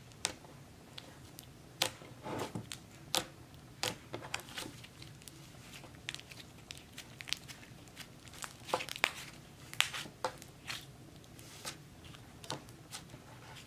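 Soft, creamy pink slime being stretched, folded and squeezed by hand, giving faint, irregular little crackles and pops.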